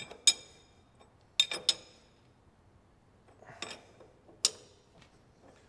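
Sharp metallic clinks and taps from a lathe's tool post and tool holder being locked down by hand: about six separate ringing clicks, spaced irregularly.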